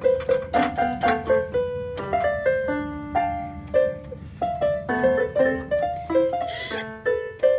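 Portable electronic keyboard played with a piano sound: a brisk run of single notes and chords.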